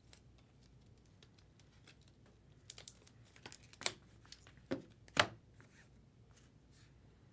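Foil trading-card pack wrapper crinkling and tearing as a pack is opened, with cards being handled: faint rustling with a few sharp crackles about four and five seconds in, the loudest just after five seconds.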